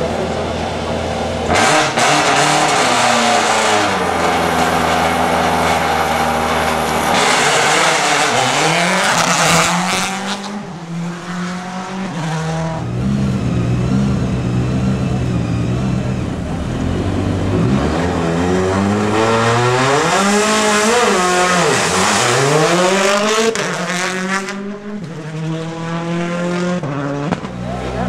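Turbocharged four-cylinder World Rally Car engines at the start line, idling and revving. A loud burst of engine noise comes in the first few seconds, and one car leaves the line. Later the revs sweep up and down again and again.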